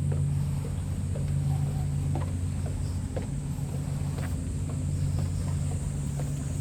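A steady low mechanical hum made of several held tones, with a thin high whine above it and scattered light ticks.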